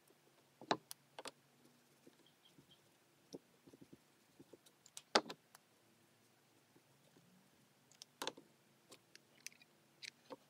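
Light clicks and taps from handling craft materials on a cardboard base: a felt-tip marker and a hot glue gun being picked up and used. The sharpest tap comes about halfway through.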